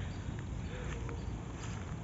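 Footsteps on bare dirt, a few soft irregular steps, over a steady low rumble of wind on the microphone.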